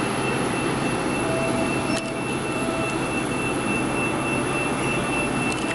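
Steady mechanical hum and hiss from convenience-store drink-counter machines such as frozen-drink dispensers, with a thin, steady high whine.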